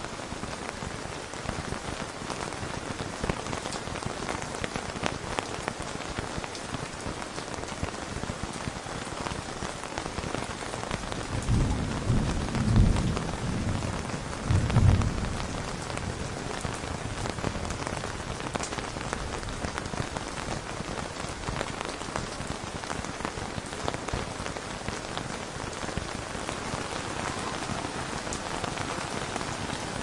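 Steady rain pattering on a tent, with many separate drop hits. About twelve seconds in, a low rumble of thunder swells twice over a few seconds and fades.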